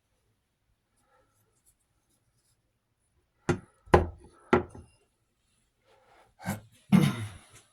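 Three sharp knocks about half a second apart, then a short clatter near the end: hard gun parts being handled and set down on a surface.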